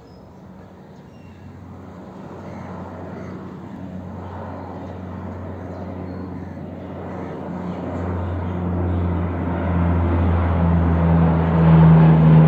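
Lockheed C-130 Hercules, a four-engine turboprop transport on Allison T56 engines, flying low overhead. It makes a steady, low propeller drone that grows louder as the aircraft approaches and is loudest near the end.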